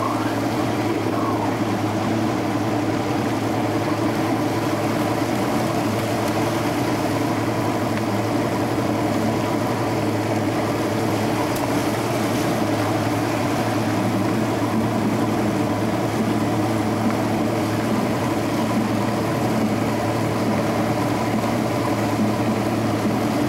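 V6 outboard motor driving a ski boat at a steady cruising speed, a constant drone with the rush of water from the wake.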